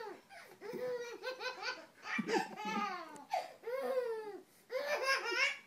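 Baby laughing, high-pitched, in about five bouts of laughter with short pauses between them.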